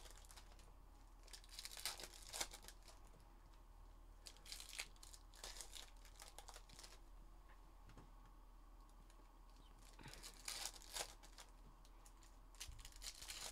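Foil trading-card pack wrappers being torn open and crinkled by hand, in several short rustling bursts about two, five, six and ten seconds in.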